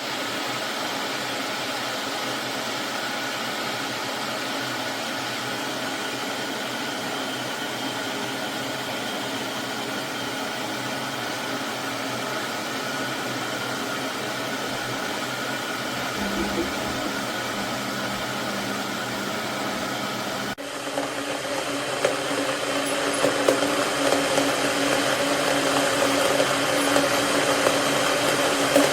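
Electric kettle heating water: a steady hiss that turns louder and rougher about two-thirds of the way through, with crackling and a rumble as the water nears the boil.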